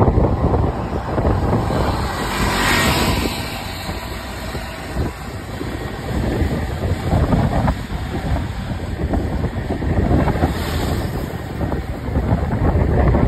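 Steady low rumble of street traffic with wind buffeting the microphone, with two hissing swells, about three seconds in and again near the ten-second mark.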